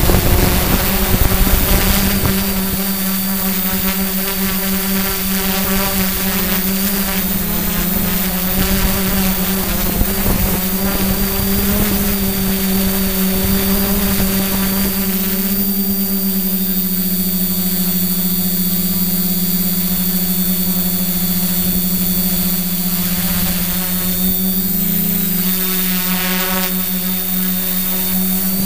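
Quadcopter's electric motors and carbon-fibre propellers droning steadily, heard from on board, with one strong tone that wavers slightly a couple of times. Wind buffets the microphone in the first couple of seconds.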